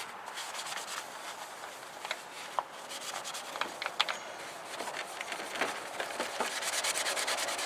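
Paper towel rubbing over a truck's headlight lens and then the turn-signal lens to dry them after a cleaning wipe: a soft, scratchy wiping with scattered small ticks, growing quicker and denser near the end.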